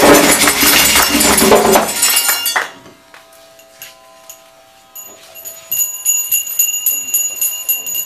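Loud chanting with percussion cuts off about two and a half seconds in. After a short lull, a small metal handbell starts ringing with quick, repeated strikes and a steady high ring.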